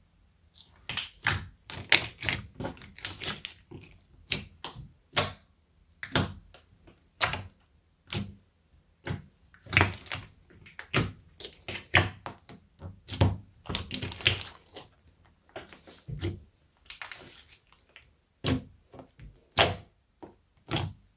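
Clear slime being poked, pressed and folded by fingers, giving irregular sharp sticky pops and clicks, one to three a second, with a few short crackly stretches. It starts about a second in.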